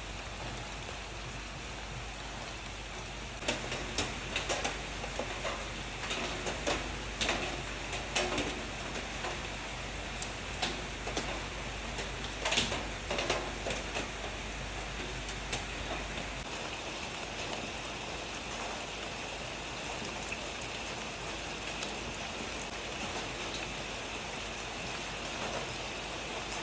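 Steady light rain falling as an even hiss. From about three seconds in until about halfway, louder single drops hit close by at irregular intervals, then the rain settles back to the steady hiss.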